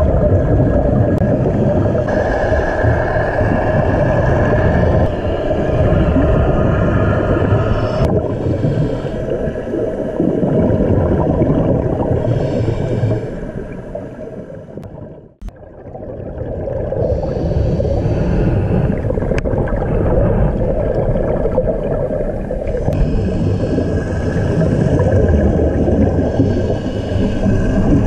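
Muffled underwater noise picked up by a camera submerged with SNUBA divers: a steady low rumble of water with the bubbling of a diver's exhaled air, dropping away briefly about halfway through.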